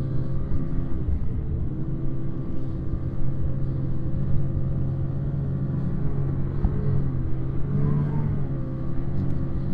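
Snowmobile engine running at a steady speed while riding over snow, its pitch dipping briefly about a second in and again near the end, over a low rumble.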